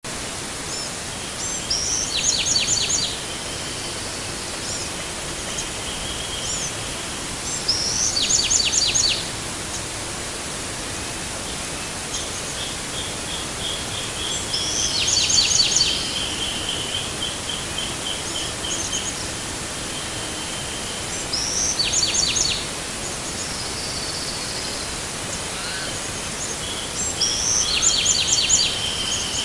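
Dawn chorus over a steady hiss. A Bewick's wren sings a quick phrase of high notes that comes back about every six seconds and is the loudest sound. In the middle a wrentit gives its series of even notes for several seconds, and a chestnut-backed chickadee and a spotted towhee call more faintly.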